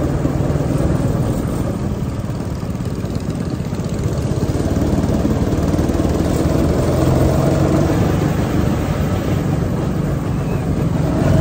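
Two-seat go-kart's small engine running as the kart drives around the track, getting louder after a few seconds.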